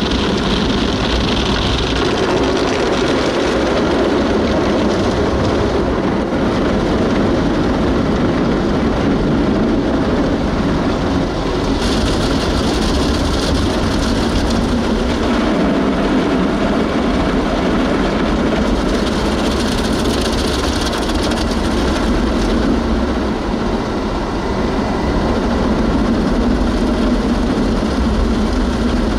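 Automatic gas-station car wash machine working over the car, heard from inside the car as a steady, loud mechanical rushing noise. It turns hissier for about ten seconds from roughly twelve seconds in.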